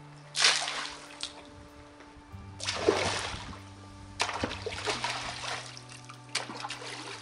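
Water splashing onto a pool's surface three times as diluted algicide is flung from a bucket, each splash fading out over about a second. Background music with sustained notes runs underneath.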